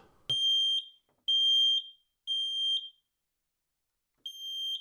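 10-year sealed lithium-battery smoke detector sounding its alarm on test: three high-pitched beeps about a second apart, a pause, then the next round of three starting near the end, the standard temporal-three fire alarm pattern. The test button is being held, and the alarm shows the newly activated unit is working.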